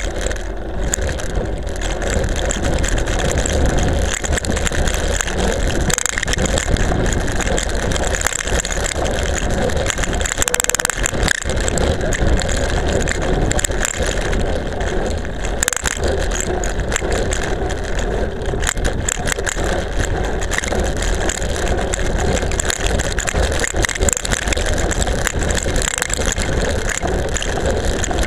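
A camera strapped to a road bike's seatpost rattling hard and continuously on a fast descent, with many quick clicks over a steady rush of wind and tyre noise on rough, cracked asphalt.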